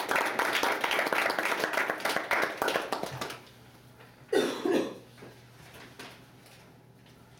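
Small classroom audience applauding for about three seconds, then fading out. A short voice sound, like a cough, follows about four seconds in.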